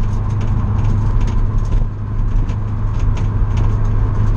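Subaru BRZ's flat-four engine running at steady revs as the car drives on track, heard inside the cabin with road and wind noise. Frequent short ticks and rattles sound over the steady drone.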